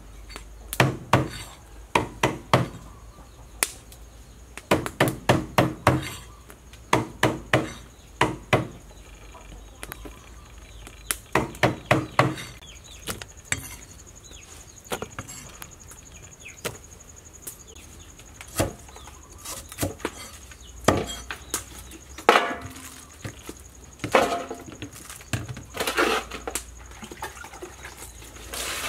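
Cleaver chopping eel into pieces on a wooden chopping block: sharp chops in quick runs of three to six strokes during the first half, then scattered knocks and clatter.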